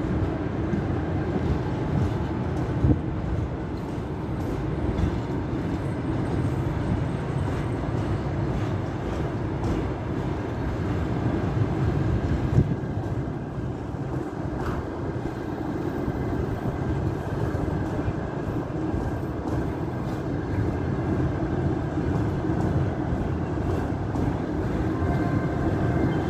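Passenger coaches of a long-distance train rolling past at a platform: a steady rumble of wheels on the rails, with a few sharp knocks.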